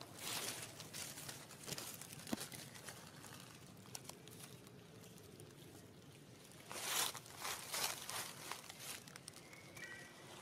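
Soft rustling and crinkling in short bursts, strongest near the start and again about two-thirds of the way through, with one sharp click a couple of seconds in.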